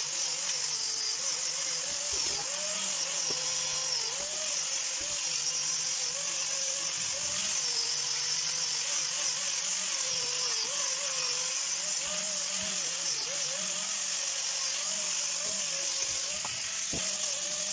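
Angle grinder running steadily with an abrasive disc pressed against a weld on stainless steel pipe: a high grinding hiss over the motor's whine, which wavers slightly as the disc works the joint.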